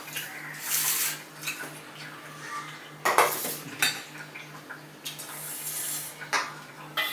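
Metal spoon clinking and scraping against stainless-steel serving bowls as curry is spooned out: several separate clinks and scrapes, with a longer scrape around five to six seconds in. A faint, evenly pulsing hum runs underneath.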